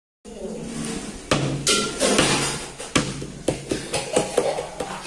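Naan dough being slapped and patted by hand on a floured counter: a dozen or so sharp slaps and knocks, irregular and coming faster from about three seconds in.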